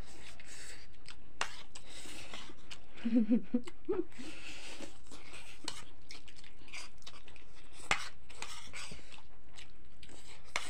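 Two people eating Maggi instant noodles: slurping and chewing, with many small clicks of spoons and forks against plates. A short hum-like vocal sound comes about three seconds in.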